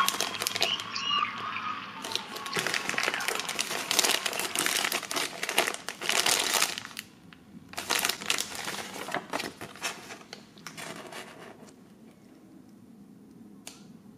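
Clear plastic blind-bag packaging crinkling as hands handle and open it. The crinkling comes in two spells with a short break about seven seconds in, and dies away over the last couple of seconds.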